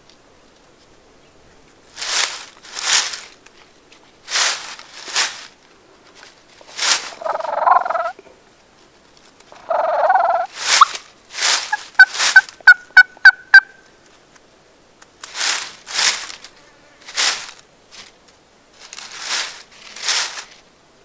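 Gould's wild turkey gobbling twice, rattling calls a few seconds apart, followed by a quick run of about eight sharp, short calls. Short scratchy noise bursts, mostly in pairs, come and go throughout.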